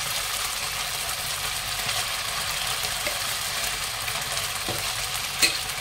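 Marinated boneless chicken pieces sizzling in hot oil in a non-stick kadhai, a steady hiss on low-medium flame. Near the end there is a single sharp tap.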